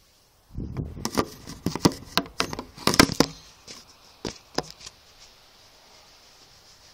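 Handling noise of a phone held close to its microphone: rustling, rubbing and a quick run of knocks and clicks as it is moved into position, then two more clicks and faint hiss once it settles.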